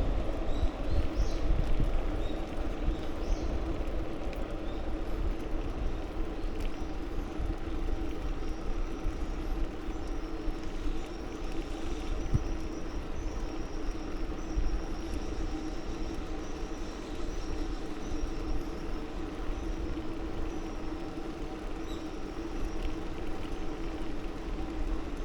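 A bicycle riding along at speed: wind rumbling on the microphone over a steady hum of the tyres on the path, a little louder in the first couple of seconds.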